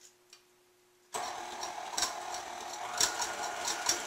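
Electric tilt-head stand mixer switched on about a second in and running steadily, beating cream with sugar and vanilla into whipped cream in its steel bowl. A thin steady whine joins about halfway through, with a few light clicks.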